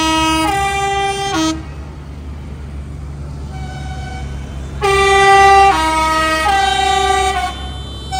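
A tractor's musical horn playing a tune, its notes stepping up and down in one phrase that ends about a second and a half in and another that starts about five seconds in. Underneath is the steady low running of passing tractor engines.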